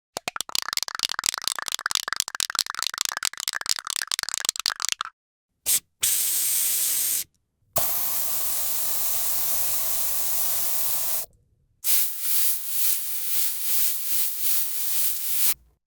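A sequence of spray hisses. It opens with a rapid string of short spray bursts. A brief puff and a short hiss follow, then a longer steady spray with a faint tone in it. It ends with a spray that pulses about twice a second, and each part cuts off sharply.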